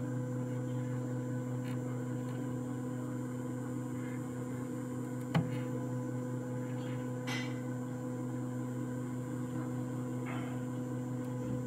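Zebra P640i card printer running with a steady hum, with a sharp click about five seconds in and a few faint ticks.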